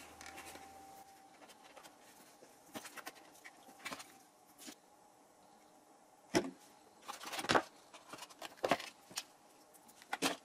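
Scattered workbench handling noises from hands moving and trimming foam parts with a knife on a wooden bench: short taps, knocks and scrapes. There is a cluster of louder knocks and scrapes just past the middle and another near the end.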